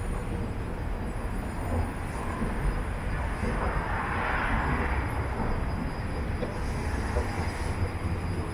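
Subway train running on the rails: a steady low rumble with a swell of hissing noise about four seconds in.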